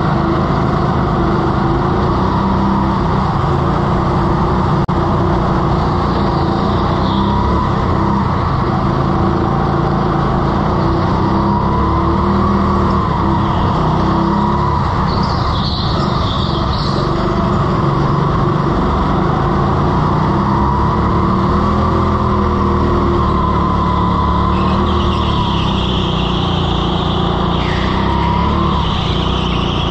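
Hire go-kart's small engine running hard on track, its pitch rising and falling continuously as it accelerates out of and lifts for corners, with brief high tyre squeals a few times on the slippery floor.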